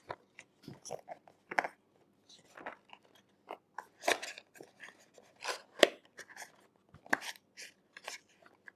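Cardboard and plastic phone packaging being handled and searched by hand: irregular crinkling, rustling and clicks.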